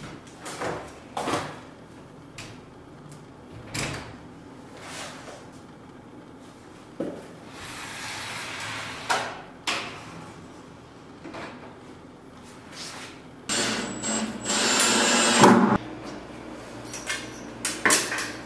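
Knocks, bumps and short scrapes of a large wooden sliding-door panel being carried, stood on the floor and shifted against the wall. About two-thirds of the way in comes a louder rushing scrape lasting about two seconds.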